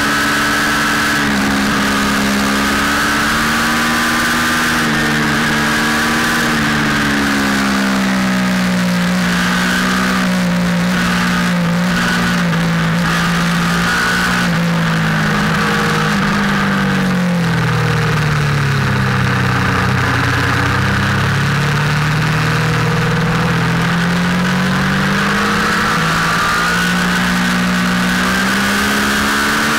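Motorcycle engine heard from on board while riding, its revs easing down to a low point about two-thirds through and then climbing again, over a steady rushing noise.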